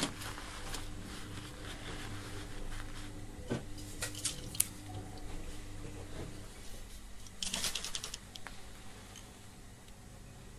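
Small clicks and handling noises of hands working on a DVD player's disc-spin motor. About seven and a half seconds in comes a short hiss of WD-40 aerosol being sprayed onto the stiff motor to lubricate it.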